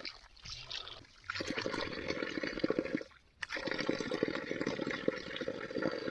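Cold water running and splashing, as from a spring or stream spout. It breaks off briefly twice, near the start and about three seconds in.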